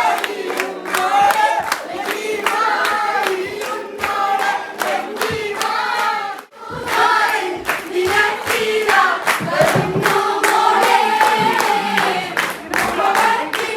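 A group of voices singing together in chorus, with many hand claps, breaking off for a moment about six and a half seconds in.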